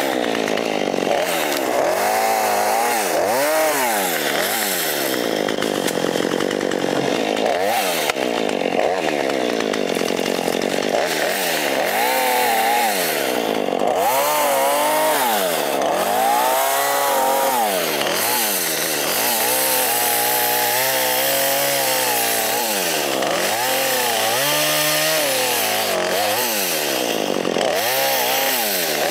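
Powered pole saw cutting brush and small limbs, its motor revving up and dropping back again every second or two as it cuts.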